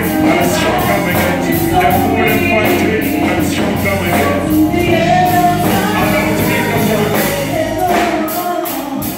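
Live band music with singing: a drum kit keeps a steady beat under electric guitar and keyboard, heard in a hall.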